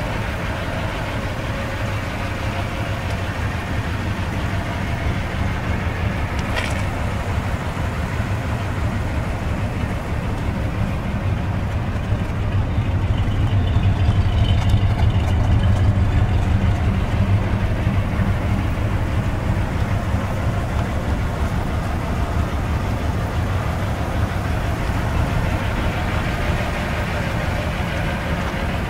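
1952 Ford Crestline engine idling steadily with a low hum. It grows louder for a few seconds in the middle, when it is closest to the tailpipe.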